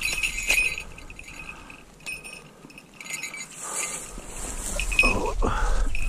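Small metal falconry bells on a red-tailed hawk jingling in quick irregular runs as the bird flies from the fist and moves about. A louder rustling scuffle comes about five seconds in.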